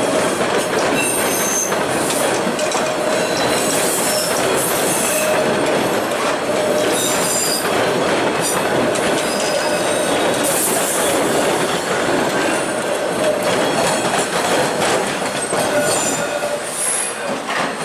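TTC T-1 subway train rolling past close by, its steel wheels rumbling on the rails, with short high-pitched wheel squeals coming and going throughout.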